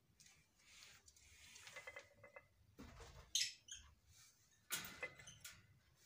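Faint scratching and short squeaks from small caged parrots at a clay-pot nest, with two louder scrapes at about three and a half and five seconds.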